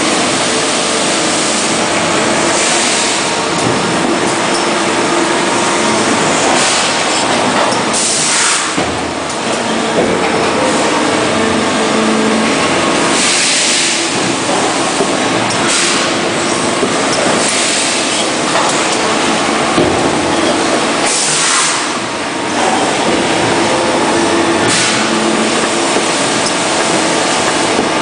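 Automatic plastic lid stacker and the surrounding injection moulding machinery running: a loud, steady mechanical hum with short hisses every few seconds.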